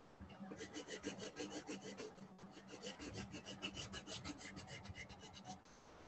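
Colored pencil scratching on paper in quick back-and-forth shading strokes, several a second, stopping shortly before the end.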